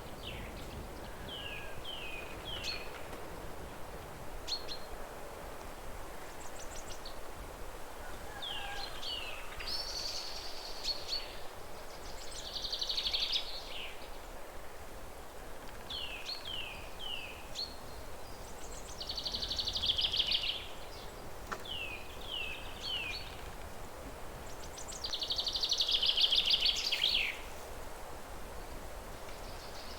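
Songbirds singing: short phrases of two or three quick descending chirps, alternating with longer, louder trilled phrases that come about every six seconds, over a steady low background hum of outdoor noise.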